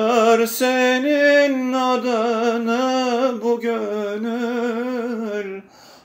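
A man singing a Turkish art song unaccompanied: a held, ornamented melodic line with wavering pitch, stopping shortly before the end.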